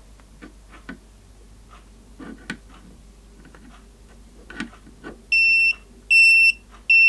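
Kaiweets non-contact voltage tester pen beeping as it senses voltage in a live cable: three short, high-pitched beeps evenly spaced, starting about five seconds in, after a few faint handling clicks. The slow beep rate is the sign that it senses only a low voltage.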